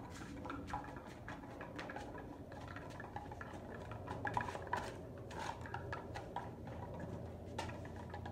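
Irregular light taps, scuffs and slaps on stone paving as a man in flip-flops and a German Shepherd dart about after a small ball: footsteps, paws and claws, and light kicks of the ball.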